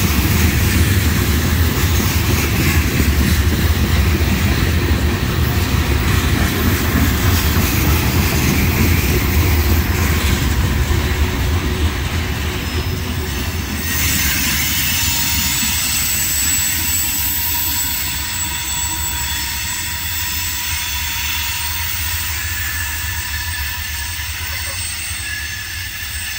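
Freight train tank cars rolling past, with a dense, steady rumble of steel wheels on the rails. After the last car goes by about halfway through, thin steady wheel squeal rings out while the train rolls away and slowly fades.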